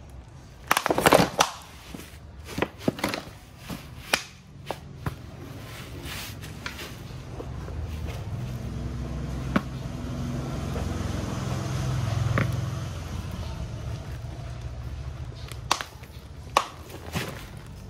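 Clear plastic candy jar cracking and crackling as a rubber boot bears down on it, in short bursts of sharp snaps: a loud burst about a second in, scattered crackles over the next few seconds, and a few more sharp cracks near the end. A low rumble rises and fades in the middle.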